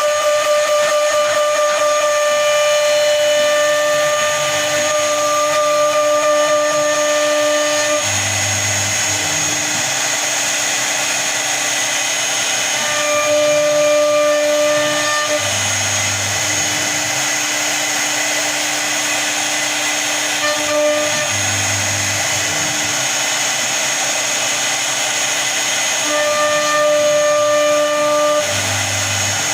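CNC router running while it carves a design into a door panel. A steady high spindle whine and cutting noise carry throughout, with lower motor tones that start and stop every few seconds as the machine moves.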